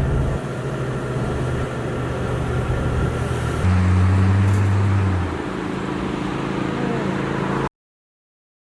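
Motor vehicle engine running with a steady hum, its pitch dropping to a lower, stronger tone a little under halfway through. The sound cuts off abruptly near the end.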